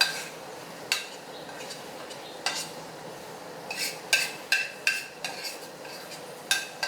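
Chicken pieces being mixed with a spice-and-vinegar marinade in a bowl: about ten sharp clinks of a utensil against the bowl, irregularly spaced, several ringing briefly, over faint steady stirring noise.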